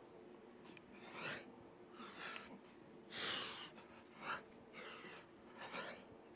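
A man breathing hard through a set of kneeling cable crunches, a forceful breath with each rep about once a second; the longest and loudest comes about three seconds in. A faint steady hum runs underneath.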